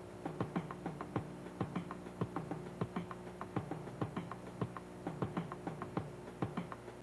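Background music: a steady sustained tone under quick, sharp clicking percussion, several clicks a second.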